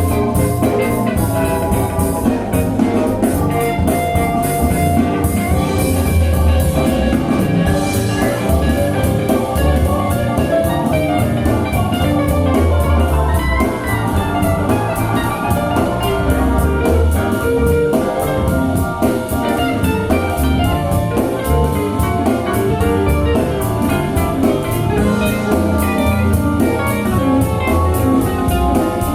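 Music with a steady beat and strong bass, played back through a pair of JBL Studio 590 floor-standing loudspeakers in a furnished room.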